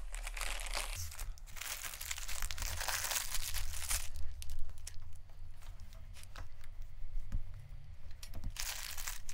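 Plastic bag of clay crinkling and rustling as it is opened and handled, in two bouts: one starting about a second in and another near the end, with a few small clicks and crackles between.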